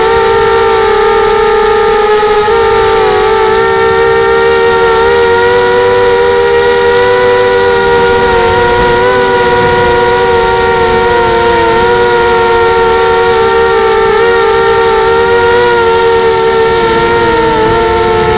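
Brushless motors and propellers of a 250-size FPV racing quadcopter, a loud steady whine whose pitch wavers a little with throttle changes, around two and a half seconds in and again near the end.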